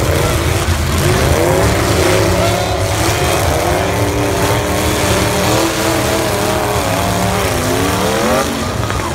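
Demolition derby cars' engines revving hard, several at once, their pitch rising and falling over a heavy steady rumble as the cars ram each other.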